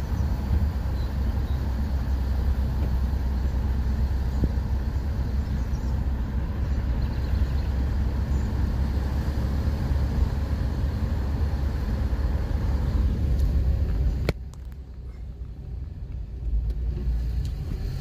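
A car driving, heard from inside the cabin: a steady low rumble of engine and road noise. About fourteen seconds in there is a click and the noise drops suddenly, then it builds again near the end.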